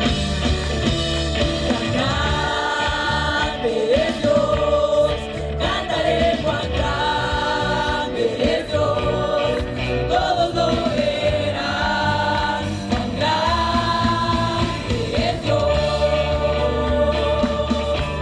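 Live Christian worship music: a band plays while several voices sing long held notes in Spanish.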